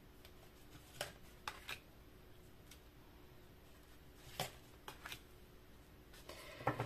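Tarot cards being drawn from the deck and laid down on a wooden table: a few faint taps and slides of card, the loudest about four and a half seconds in.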